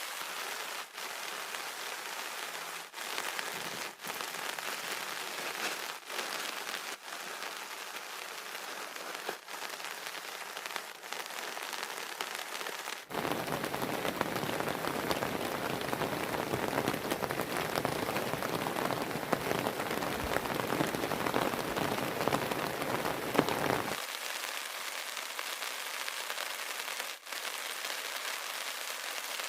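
Heavy rain falling steadily, a dense hiss of drops, louder and fuller through the middle stretch, with a few brief dips.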